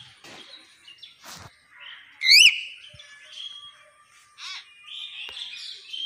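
Hill myna calling: one loud, arching whistle about two seconds in, with softer, harsher calls before and after it.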